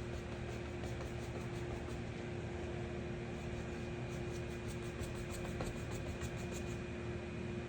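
A steady mechanical hum with a constant low tone, like a running fan or motor. Faint high-pitched pulses tick over it at about four to five a second, with a break of about a second near the middle.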